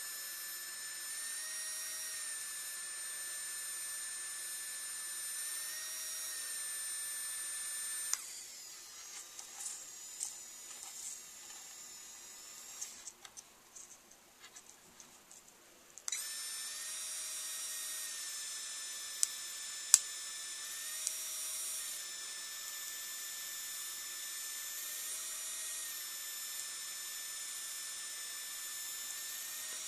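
3Doodler 3D pen's drive motor whining steadily as it feeds and extrudes plastic filament, the pitch stepping slightly now and then. About eight seconds in the whine stops for several seconds, leaving faint taps and clicks, then starts again; a sharp click follows a few seconds later.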